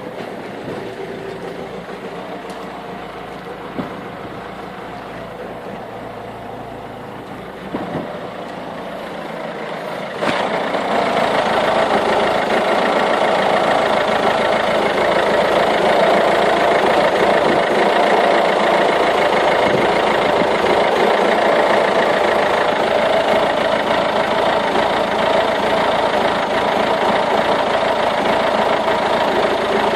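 Peugeot 1.6 HDi (9HX) four-cylinder turbodiesel idling just after a cold start, running unevenly with diesel clatter. About ten seconds in it gets abruptly louder and stays so. This rough cold idle, which comes with smoke from the exhaust, has not been cured by new glow plugs, a cleaned EGR valve or injector cleaner.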